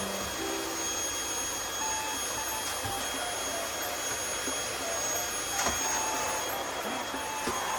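Vacuum cleaner running steadily, a constant rushing hiss with a high motor whine.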